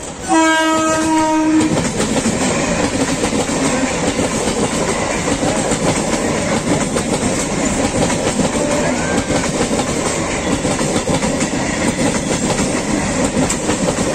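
Indian suburban EMU local train sounding one horn blast for about the first second and a half, then its coaches running past with a steady rumble and a fast clatter of wheels over the rail joints.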